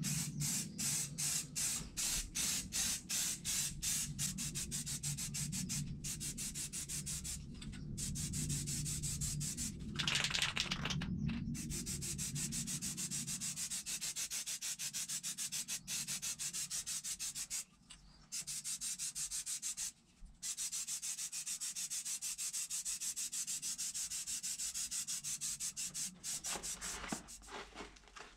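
Aerosol spray paint can hissing as paint goes onto an ATV plastic panel. It starts in many short, rapid bursts, then runs in longer steady passes with a couple of brief pauses.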